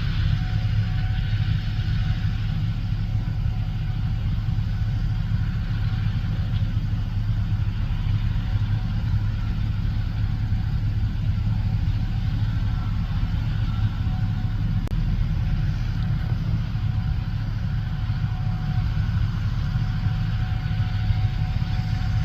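Gleaner S77 combine harvester running steadily while harvesting corn: a constant low engine drone with a faint steady whine above it.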